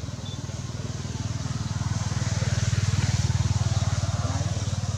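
Engine of a passing motor vehicle, swelling to its loudest about three seconds in and then easing off a little.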